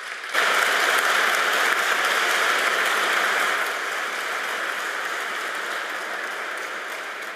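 Audience applauding. The clapping swells suddenly about half a second in, holds for a few seconds, then slowly dies down.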